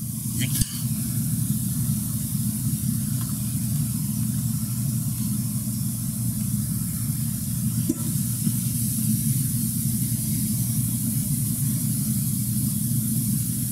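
Steady low rumble and hiss of background noise, with a faint knock about half a second in and another about eight seconds in.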